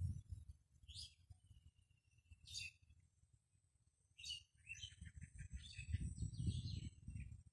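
Small birds calling in the open: two sharp, high, downward-sweeping calls in the first three seconds, then a busy run of quick repeated chirps through the second half. A low rumble sits under the chirps and is the loudest sound there.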